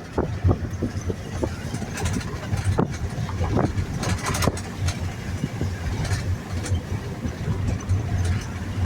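Minivan engine and road noise heard from inside the cabin: a steady low rumble with many short knocks scattered through it.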